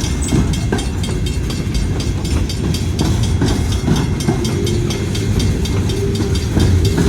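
Train passing close by: rail cars' wheels rumbling and clicking steadily on the track. A steady low hum joins in from about halfway through and grows stronger near the end.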